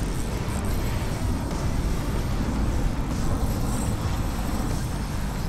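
Steady low rumbling background noise, even throughout, with no distinct events.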